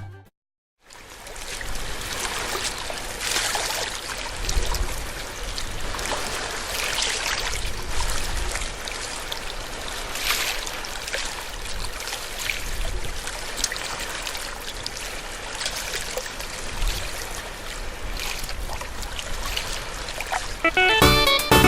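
Seawater lapping and splashing irregularly against a harbour breakwater, with a low wind rumble on the microphone; it starts about a second in after a short silence.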